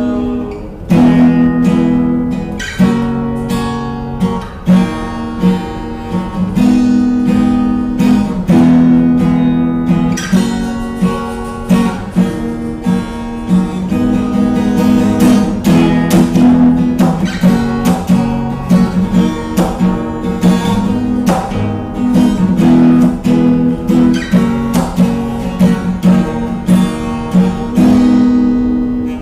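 Acoustic guitar strummed in a run of chords, with no singing.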